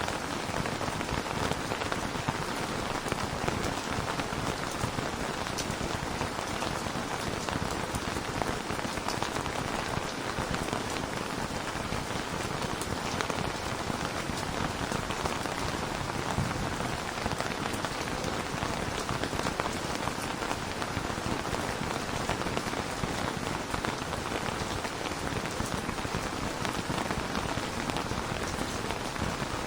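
Steady rain falling on a surface, a dense even hiss of many small drop ticks.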